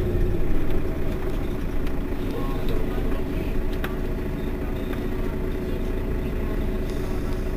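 Mercedes-Benz Citaro Facelift city bus standing with its engine idling: a steady low hum with a constant tone over it.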